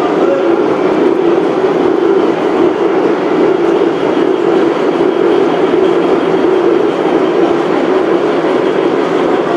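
Gauge 1 model train running along the track: a steady rolling rumble of many wheels and wagons on the rails.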